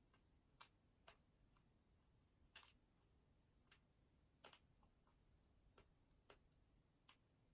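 Near silence with faint, sharp clicks and taps at irregular intervals, about a dozen of them, as from small objects handled at a desk.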